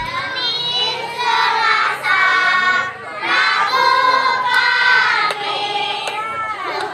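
A group of children singing together in unison, holding long notes with short breaks between phrases.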